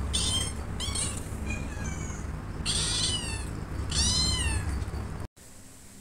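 Calico kitten meowing repeatedly, about five meows, each rising and falling in pitch, the last two the loudest, over a steady low hum. The sound drops away suddenly a little after five seconds in.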